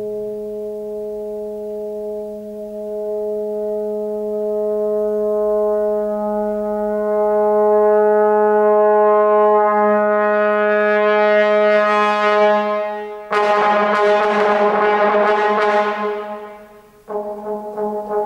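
Solo trombone holding one long, steady note that swells louder and brighter over about twelve seconds. It then breaks abruptly into a loud, harsh, rough blare that dies away, and a new note starts sharply near the end.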